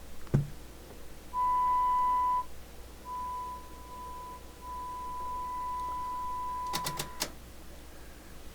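A steady, pure audio test tone sounding in three stretches: a loud one about a second long, then a quieter broken one, then a longer steady one of several seconds. It is the kind of signal used to drive a CB transmitter's audio during alignment. A sharp click comes near the start, and a quick run of about four clicks near the end as the tone stops.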